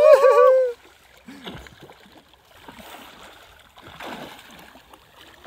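A short, loud shout opens it, then a swimmer's arm strokes splashing in lake water, uneven and swelling about four seconds in.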